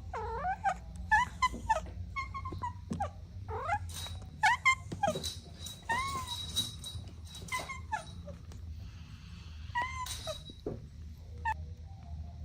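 Kittens mewing repeatedly: many short, high calls that rise and fall in pitch, about one or two a second, some close together.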